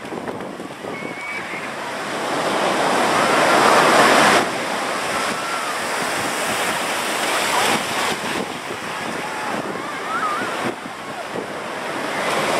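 Ocean surf washing in and breaking, with wind buffeting the microphone. The noise swells to a peak about four seconds in, then drops off suddenly. Faint distant voices are heard through it.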